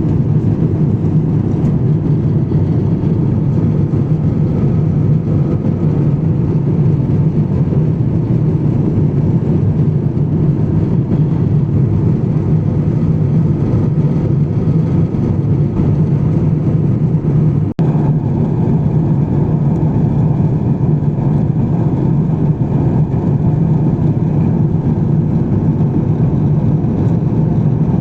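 Steady cabin roar inside an Airbus A350-1000 climbing out: the Rolls-Royce Trent XWB engines and airflow heard from a window seat. A momentary break about two-thirds of the way through.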